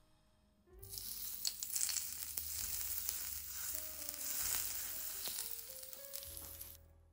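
Hot oil poured over chopped roasted red pepper, minced ginger and sesame seeds, sizzling and crackling. It starts suddenly about a second in and stops shortly before the end, with soft background music under it.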